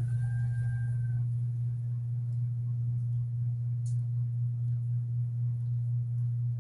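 A steady low-pitched hum, with a faint high tone in the first second and a soft click about four seconds in.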